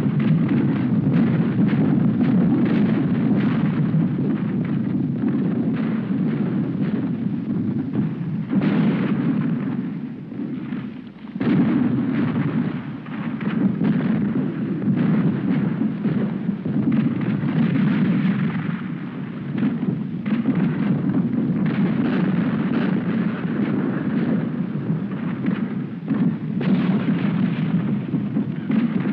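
Civil War battle sound effect: dense, continuous gunfire and cannon fire, many shots overlapping into a steady din, with a brief lull about ten seconds in.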